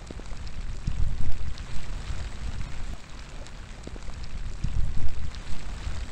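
Steady rain falling outdoors, with nearby drops heard as sharp ticks. Wind gusts rumble low on the microphone, swelling about a second in and again near five seconds.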